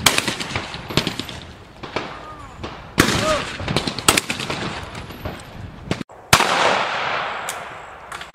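Shotgun shots at clay targets: three loud reports about three seconds apart, each dying away in a long echo, with smaller, sharper cracks between them.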